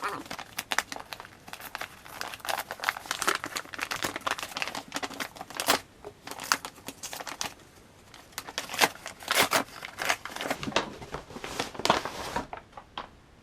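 A mailed package being torn open, its wrapping crinkling and rustling in rapid, irregular crackles. The crinkling stops about a second before the end.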